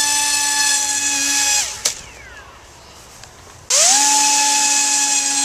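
Small electric motor of a model airplane spinning its propeller in two bursts: a steady high whine that winds down after under two seconds, a short pause with one click, then the motor spins up quickly again to the same steady whine.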